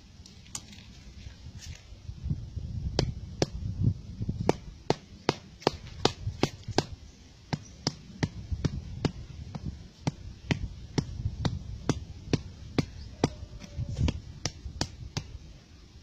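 A steady run of sharp taps or knocks, about two to three a second, with a low rumble of handling noise underneath.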